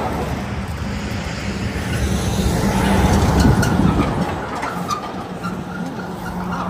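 Road traffic passing close by: a semi-truck pulling a tank trailer goes by, its tyre and engine noise swelling to a peak about three seconds in and then easing off.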